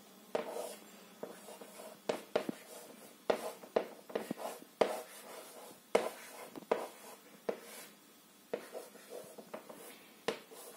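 Chalk writing on a board: irregular taps and short scratchy strokes as each figure and line is written, with brief pauses between them.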